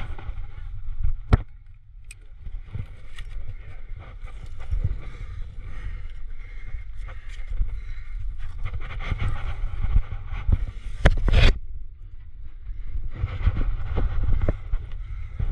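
Wind buffeting the climber's body-mounted camera microphone, a steady low rumble, with scattered clicks and scrapes of climbing gear and taped hands against the sandstone crack. There is one sharper knock about eleven seconds in.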